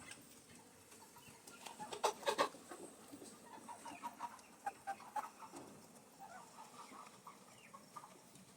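Broiler chickens clucking, a string of short calls, with a louder burst of them about two seconds in.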